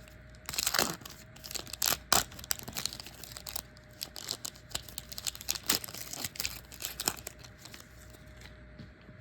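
Trading-card pack wrapper being ripped open and crinkled by hand: a few loud tears in the first couple of seconds, then lighter crackling handling that dies down near the end.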